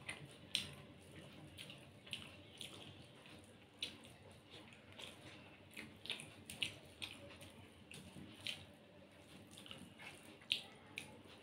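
Faint, irregular wet clicks and squishes of eating by hand: fingers mixing rice with egg omelette curry on a steel plate, and mouth sounds of chewing.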